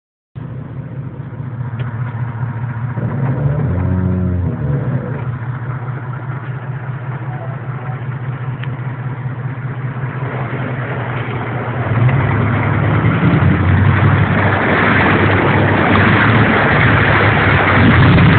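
Truck engine running, heard from inside the cab, as the truck drives through deep water. About three seconds in the engine revs up and back down, and from about halfway it grows louder, joined by a rising rush of water splashing and churning against the truck.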